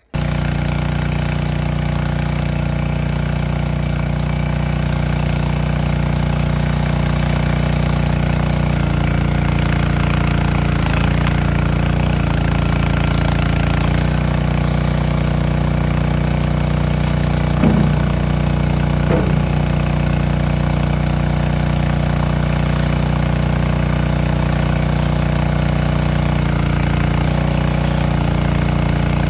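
Skid steer loader's engine running steadily, its pitch dipping briefly a few times as it takes load. Two short knocks come around the middle.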